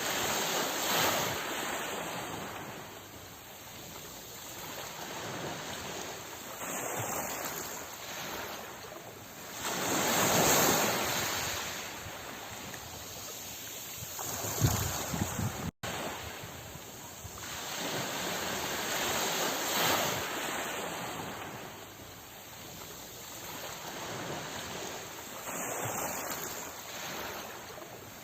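Sea waves breaking and washing in, swelling and fading about every nine to ten seconds, with a momentary break in the sound about halfway through.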